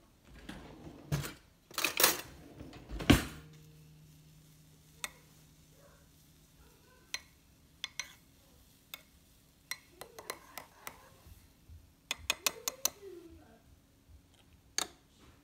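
A metal spoon stirring frothed-milk coffee in a ceramic mug and clinking against its sides. A few louder knocks come in the first three seconds, then light clinks at scattered moments, with a quick run of them near the end.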